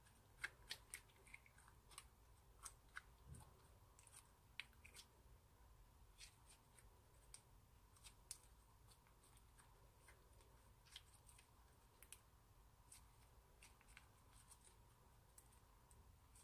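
Clear glitter slime being squeezed and stretched between fingers, giving faint, irregular sticky clicks and pops, more frequent in the first few seconds.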